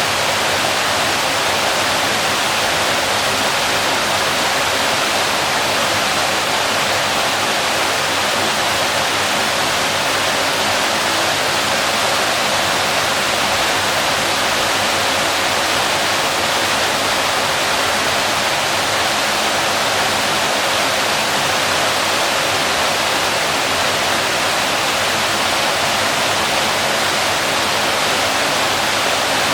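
Waterfall: water falling and splashing in a steady, unbroken rush, loudest in the middle and upper range with little low rumble.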